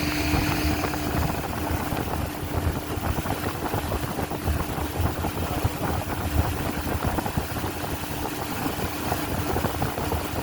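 Boat motor running steadily, a constant hum over a low rumble, as the boat travels along the river.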